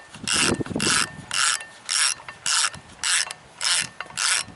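Socket ratchet with a 3/4 socket clicking in short bursts, about two a second, as the handle is swung back and forth to tighten flywheel bolts on a 5.0-liter V8 Ford engine.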